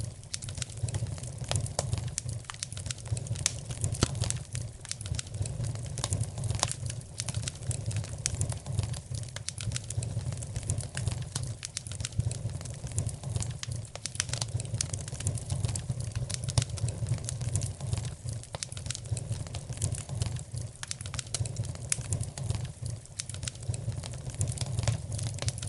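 Wood fire crackling in a fireplace, with frequent small irregular pops over a low steady rumble.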